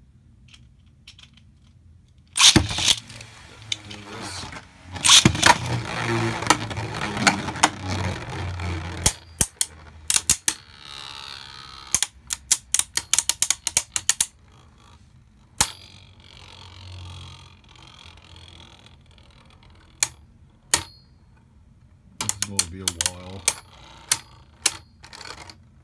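Beyblade Burst tops launched into a plastic Beyblade stadium about two seconds in. They spin and whir around the bowl, with many sharp plastic clacks as they collide.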